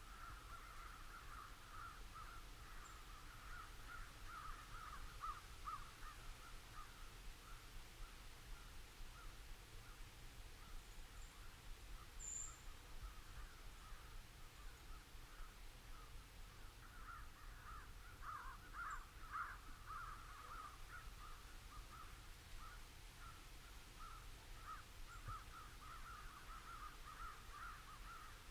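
A distant flock of crows cawing together in a continuous, overlapping chorus, busier twice. A few brief high chirps from a small bird near the middle.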